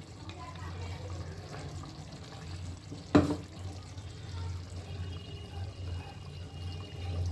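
Faint water and liquid sounds over a steady low hum, with one sharp knock about three seconds in.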